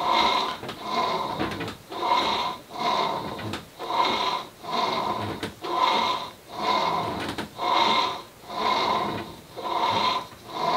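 Longbow tillering rig squeaking in time with repeated pulls as the bow is drawn down on the tiller and let back up, about once a second.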